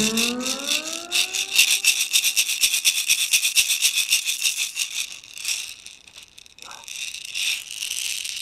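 Homemade buffalo-horn rattle, capped with pine and filled with Crosman Copperhead BBs, shaken in fast strokes: a dense, bright rattle of shot inside the horn. It thins out about six seconds in, then picks up again more softly.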